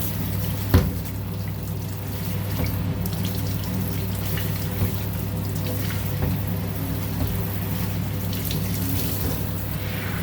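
Shower water running steadily, rinsing shampoo off a small dog. A single knock about a second in.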